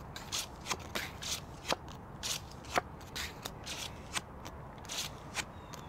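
Playing cards being dealt from a card shoe and turned face up onto a wooden tabletop: a string of short, soft snaps and brief slides, about a dozen in all.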